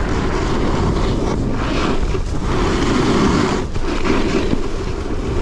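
Snowboard riding heard from a GoPro strapped low on the rider's leg: steady wind rush on the microphone mixed with the board scraping and sliding over packed snow, swelling and easing with the turns.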